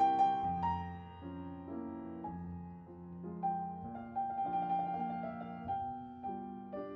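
Background piano music: a slow melody of single notes over held low chords.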